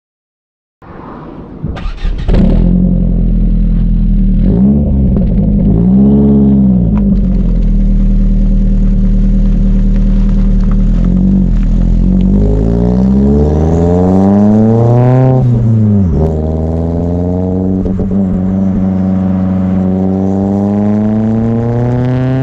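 Ford Focus RS Mk1's turbocharged 2.0-litre four-cylinder engine idling and blipped twice, then pulling up through the revs, dropping sharply at a gear change about two-thirds of the way in, and climbing again.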